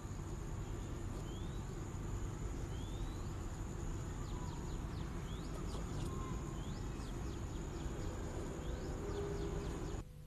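Outdoor ambience of birds calling in short rising chirps and quick down-swept notes, over a steady high insect-like whine and a low hum of background noise. It drops away abruptly near the end.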